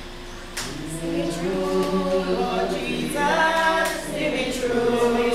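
Spiritual Baptist congregation singing a hymn unaccompanied, many voices including women's, on long held notes. The singing comes in about half a second in and swells fuller.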